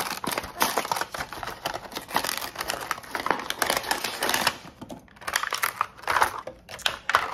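A small cardboard blind box being torn open by hand: its flaps crackle and rip in a dense run of clicks and crinkles. After a short lull about four and a half seconds in, a clear plastic baggie crinkles in short bursts as the toy inside is handled.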